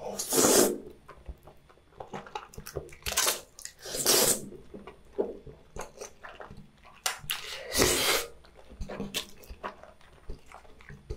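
Close-miked eating of spicy tteokbokki: four loud wet slurps as sauce-coated rice cakes and glass noodles are sucked in, near the start, about three and four seconds in and about eight seconds in, with soft chewing and sticky mouth sounds between.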